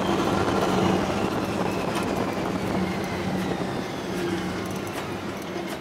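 Open Test Track ride vehicle rolling at speed and slowing down: rushing wind and road noise with a steady low hum and a high whine that slowly falls in pitch, fading as it slows.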